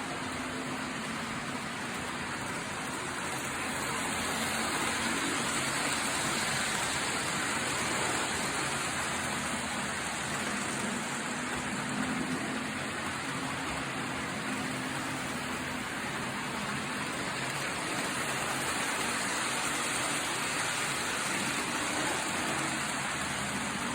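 British Rail diesel-hydraulic locomotives, a Class 52 Western and a Class 42 Warship, running steadily. Their engines give a low hum under a constant hiss.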